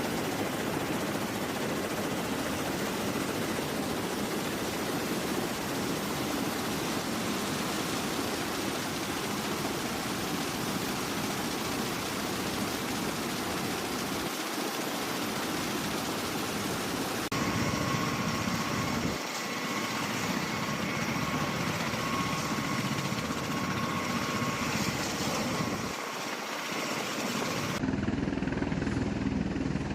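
V-22 Osprey tiltrotor's rotors and turboshaft engines running: a steady, dense rushing noise. The sound changes abruptly twice, once about halfway through, when a faint steady whine comes in, and again near the end.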